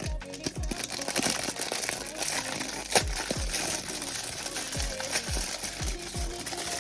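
Plastic packaging crinkling and rustling as a parcel is unboxed, with a sharp crackle about three seconds in. Background music with a deep bass beat whose notes drop in pitch plays underneath.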